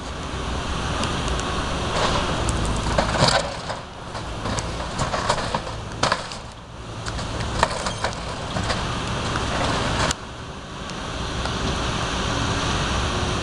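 Caterpillar tracked excavator's diesel engine running steadily while its bucket tears into the garage roof, with irregular bursts of cracking and crunching wood and debris from about two to nine seconds in.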